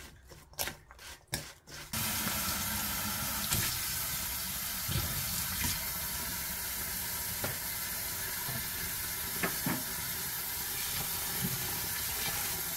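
Kitchen tap running steadily into a stainless bowl while hands swish and rinse green laver (파래) in the water; the water starts about two seconds in. Before that there are a few soft clicks of a spoon tossing salted julienned radish in a steel bowl.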